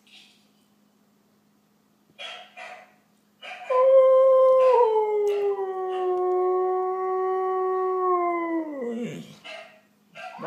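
Husky howling: two short yelps, then one long howl that steps down in pitch soon after it starts, holds steady for several seconds and slides down at the end.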